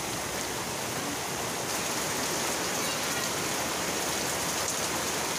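Heavy rain falling steadily, an even dense hiss of drops on leaves and wet ground.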